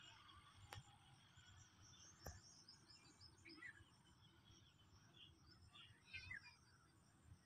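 Faint outdoor ambience, near silence: scattered small-bird chirps and a steady high insect trill over a low rumble, with two faint clicks in the first few seconds.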